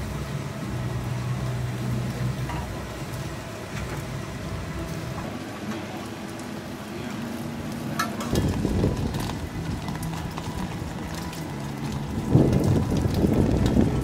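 Crepe batter sizzling on a hot griddle over a steady low hum, growing louder about eight seconds in and again near the end.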